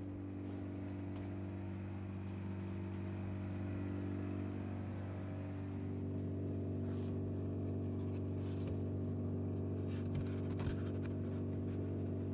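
Steady low machine hum, holding several fixed pitches, with a few faint clicks and rustles in the second half.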